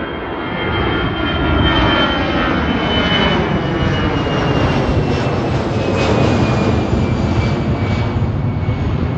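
Airplane engines running: a loud, steady rush with a high whine that slowly falls in pitch.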